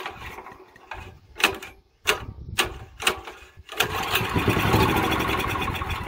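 Honda GX340 single-cylinder engine being pull-started by its recoil rope, a hard start: a few short sharp pulls, then about four seconds in it sputters for about two seconds and fades without staying running.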